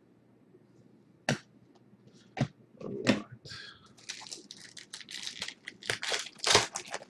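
A foil trading-card pack wrapper being crinkled and torn open by hand, in a dense run of crackling over the last three seconds. Before it come a couple of sharp taps and a knock as a card is set down and a pack is taken from the stack.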